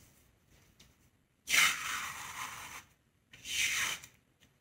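Clothes iron pushed across a damp tea towel laid over a diamond painting canvas: two strokes of sliding, scraping noise, a longer one about a second and a half in and a shorter one near the end. The drag comes from canvas residue sticking to the back of the cloth.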